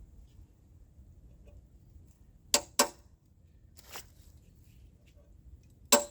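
Metal tool striking metal on an engine being taken apart, knocking at a tight part: two sharp ringing strikes about two and a half seconds in, a fainter knock a little later, then a quick even run of strikes begins at the very end.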